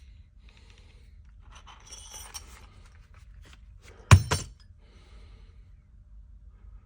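A hammer strikes a hollow punch twice in quick succession about four seconds in, the first blow much the louder, with metallic ringing. Before that there is quiet rustling and handling of tools.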